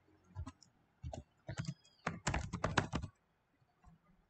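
Typing on a computer keyboard: a few scattered keystrokes, then a quick run of keys from about one and a half seconds in, stopping about a second before the end.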